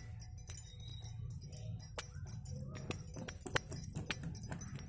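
Metal spoon stirring thick cake batter in a plastic bowl, knocking against the bowl in irregular sharp clicks, over background music with a jingling rattle.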